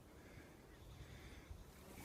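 Near silence: faint background with a low rumble.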